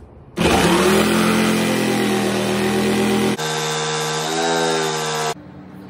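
Harbor Freight jigsaw running as it cuts a speaker hole in a wooden baffle board: a steady motor whine with cutting noise that starts about half a second in. The pitch jumps abruptly a little past halfway and wavers briefly, and the sound stops suddenly shortly before the end.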